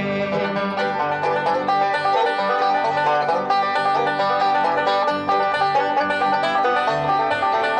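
Bluegrass band playing an instrumental break between vocal verses, led by quick picking on a five-string banjo, with guitar and bass underneath.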